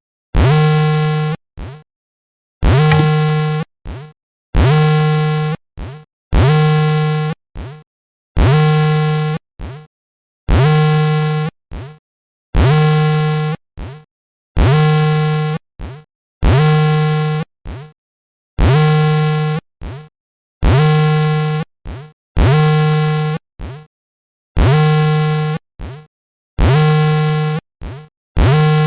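Earthquake alert alarm from monitoring software: a harsh, buzzing electronic tone, each about a second and a half long and followed by a short blip, repeating about every two seconds.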